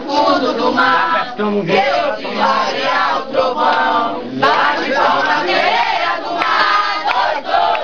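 A mixed group of men and women singing together in chorus, an Umbanda ceremonial song.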